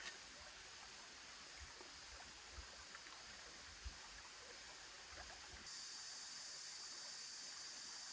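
Faint, steady running water of a shallow rocky stream, with a few soft knocks and clicks from bamboo being handled. The hiss steps up a little in level about two-thirds through.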